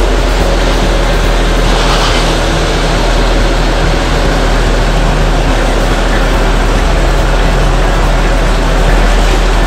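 1954 Chevrolet's straight-six engine running steadily at idle as the car creeps forward at walking pace.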